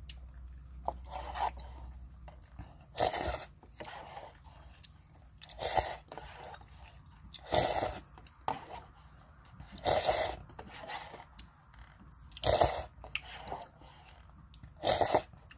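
Mouth sounds of drinking spicy ramen broth straight from the cup: about seven loud, short slurps a couple of seconds apart, with faint swallowing and mouth noises between them.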